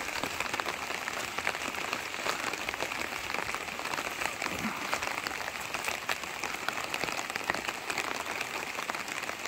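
Steady rain pattering on tent fabric, a dense, even patter of many small drop hits.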